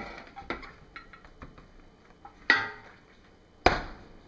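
Soap-making containers and utensils knocking and clattering as they are handled: a few sharp knocks, the loudest about two and a half seconds in with a brief ring.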